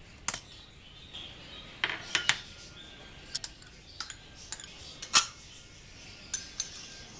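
Small glass bowls clinking and knocking against a stone mortar and the worktop as dry ingredients are tipped in: about ten separate sharp clinks, the loudest about five seconds in.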